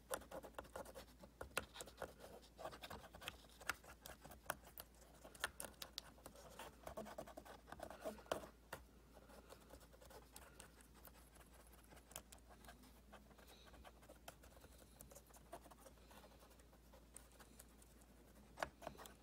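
Faint scratching and rubbing of an alcohol-dampened cotton swab scrubbing sticky iced-tea residue from the base under a removed laptop key, around its plastic scissor clips. The scrubbing is busy for the first half, then thins out to occasional scrapes, with a couple of sharper clicks near the end.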